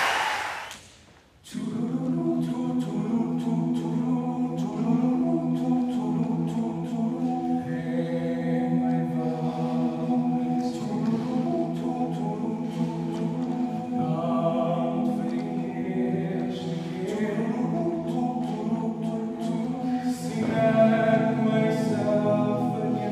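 Applause dies away, and after a brief hush a men's choir begins singing a cappella in sustained chords, swelling louder near the end.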